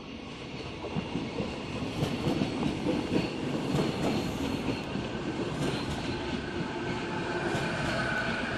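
A Renfe train running on the rails, its wheel and rail noise growing louder over the first two seconds as it approaches and then holding steady. A thin steady whine comes in near the end.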